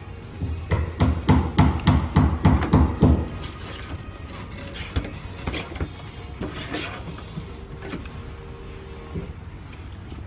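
A quick run of about ten knocks on sheet-metal roofing panel, about four a second, followed by softer scattered clicks and scraping as the metal is worked.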